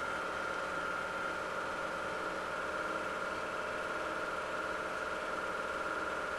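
8 mm movie projector running: a steady mechanical hum with a constant high whine.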